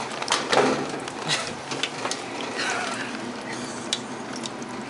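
Water running and splashing from a push-button drinking fountain as someone drinks, with a few sharp clicks through it.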